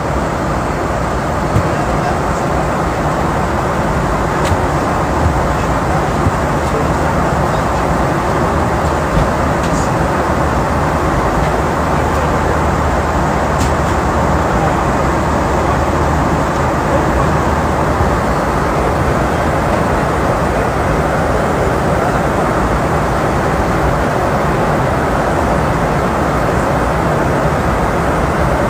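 Airliner cabin noise in flight: a steady rumble and hiss from the engines and airflow, with a few faint clicks.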